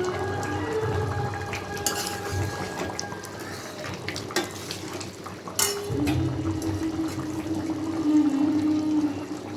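Metal cooking utensils clinking and scraping against pots, with a few sharp clanks spread through the middle.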